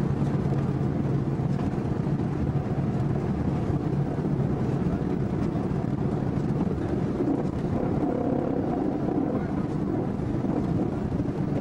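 Engine and road noise of a vehicle driving steadily, heard from inside it: an even low rumble with a faint steady hum underneath.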